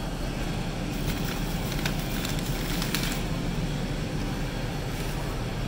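Plastic takeout bag rustling and crinkling with a few light crackles, over a steady hiss.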